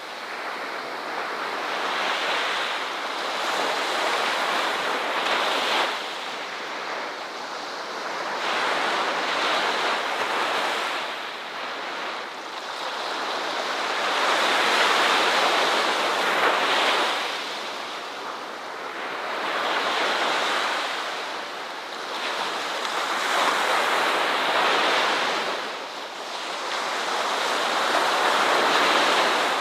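Ocean surf: waves breaking and washing up a shore in a continuous rush that swells and ebbs every few seconds.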